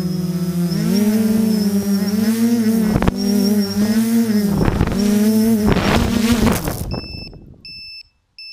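Quadcopter's four Tiger Motor 2213 950kv brushless motors with 9x4.7 APC props buzzing steadily, heard from the onboard camera, the pitch dipping and rising as the throttle changes, with a few brief thumps. The buzz fades away about seven seconds in, followed by three short high beeps.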